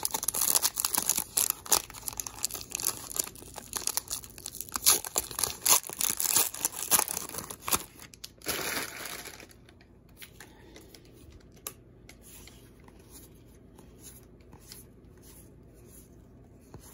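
A baseball card pack's wrapper crinkling and tearing as it is opened, busy and crackly for about nine seconds with a louder rip near the end. Then a much quieter run of soft ticks as the trading cards are slid off the stack one by one.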